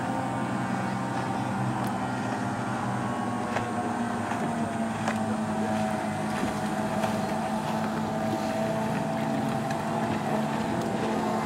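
Outboard motors on river boats running steadily, several engine tones heard together, one sinking slightly in pitch about midway.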